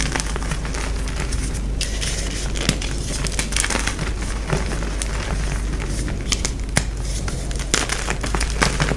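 Gym chalk being crushed and crumbled: a continuous crunching crackle with sharp cracks scattered through it.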